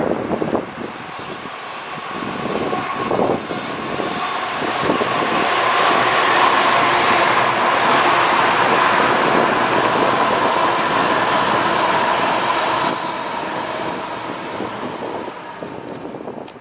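CrossCountry Voyager diesel multiple unit passing at speed: its engines and wheels on the rails grow louder as it comes up, peak for several seconds as the coaches go by close, then fade away near the end.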